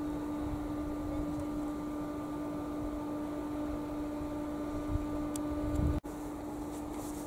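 A steady hum held at one pitch over a low rumble. It cuts out for an instant about six seconds in.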